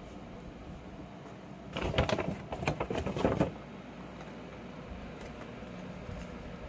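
Socked foot being pushed into a Nike Book 1 sneaker: about two seconds of irregular scuffing and rustling, starting just under two seconds in, over a steady low hum.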